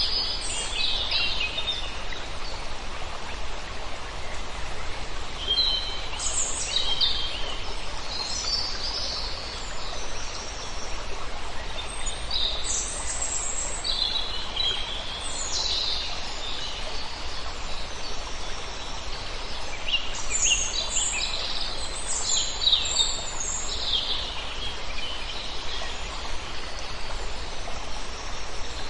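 Forest ambience: songbirds calling and chirping in scattered bursts over the steady rush of flowing water.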